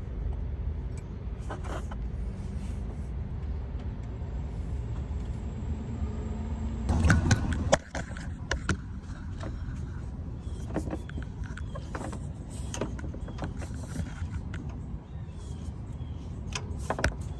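Scattered clicks and metallic clinks of hand tools and parts during work on a truck's serpentine belt and pulleys, over a steady low rumble of vehicle noise. About seven seconds in, a louder swell of rumble rises and cuts off suddenly.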